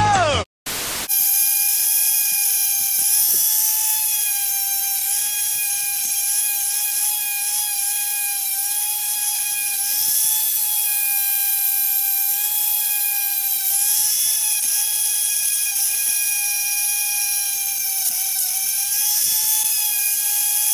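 Dremel rotary tool spinning a brush bit with a steady high whine, its pitch dipping now and then as the brush is pressed against a bare die-cast metal toy jet to polish it.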